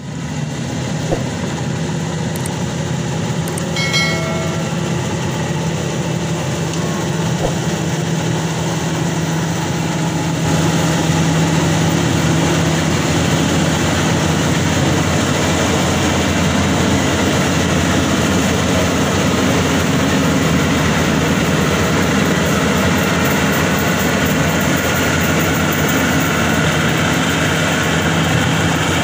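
Maxxi Bimo Xtreme 2.0 L rice combine harvester running steadily as it harvests, a continuous engine hum under the noise of its cutting and threshing works. It grows louder about ten seconds in.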